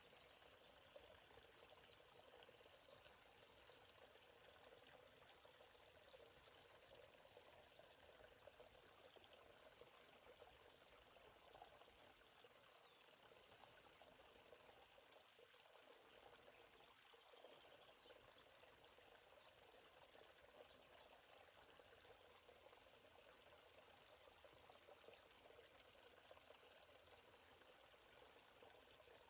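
A steady, high-pitched chorus of insects chirring, with faint running water from a stream underneath.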